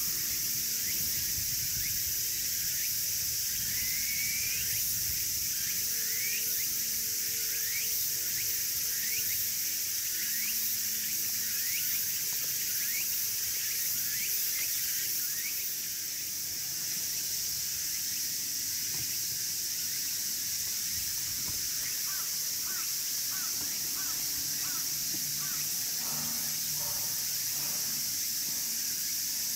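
Outdoor ambience dominated by a steady, high-pitched insect drone. Over it comes a run of short repeated chirping calls, a little under two a second, from about four seconds in to about sixteen seconds, with a shorter run near the end.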